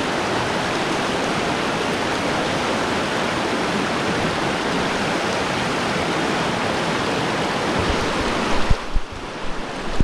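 Steady rushing water of a stream or river. Near the end the rush drops away suddenly and a few low thumps follow.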